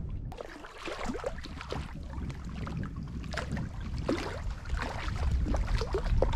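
Water splashing and lapping around a canoe, in irregular strokes, over a low rumble of wind on the microphone.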